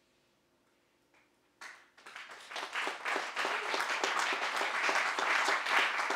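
Audience applause: after a near-silent pause, clapping breaks out about one and a half seconds in and quickly builds to full, steady applause.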